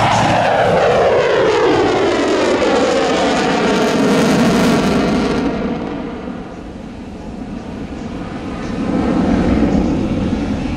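Twin Pratt & Whitney F119 jet engines of an F-22 Raptor in a low display pass. The loud jet noise falls steadily in pitch over the first few seconds as the fighter sweeps by, fades around the middle as it pulls away, and swells again near the end as it comes back around.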